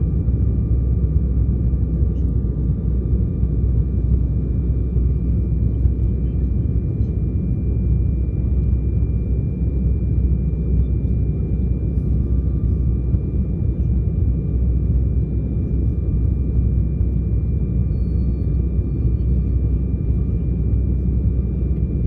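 Steady low rumble of cabin noise inside a Sukhoi Superjet 100 in flight, with a faint steady whine from its PowerJet SaM146 turbofan engines.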